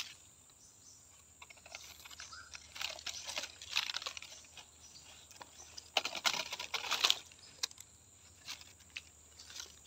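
Irregular rustling and crackling of leaves and twigs at the stream bank, as a hooked fish is pulled in. The sound gets louder in short bursts about three to four seconds in and again around six to seven seconds.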